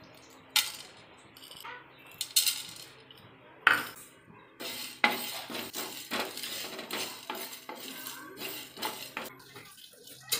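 Whole spices dropped into a dry nonstick frying pan with a few sharp clicks, then stirred around the pan for dry roasting, a steady rattle and scrape of coriander, cumin and fennel seeds against the pan starting about halfway through.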